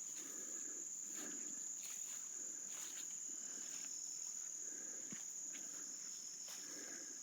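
Insects trilling steadily at one high pitch, faint, with a few soft rustles now and then.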